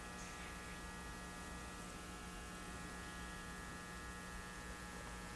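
Faint, steady electrical hum made of a low tone with many higher overtones, holding level throughout with nothing else standing out.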